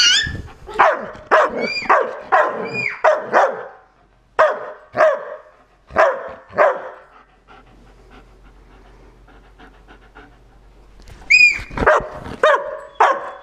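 German Shepherd barking in quick, excited runs: about a dozen barks over the first seven seconds, a short lull, then another burst of barks near the end.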